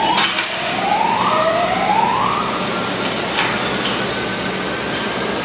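Metal squeaking as the ladder cart's telescoping tow bar is slid out: three rising squeals about a second long each, with a few sharp clicks.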